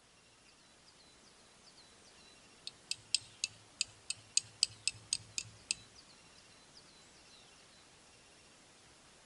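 Faint, short, falling chirps of birds calling outdoors, with a quick run of about a dozen sharp, high clicking notes, about four a second, in the middle.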